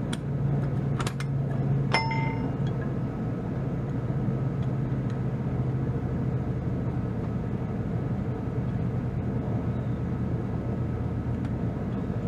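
Kubota B2650 tractor's diesel engine running at a steady idle, while metal hitch parts knock a few times and give one ringing clang about two seconds in as the 3-point hitch pins and arms are worked loose.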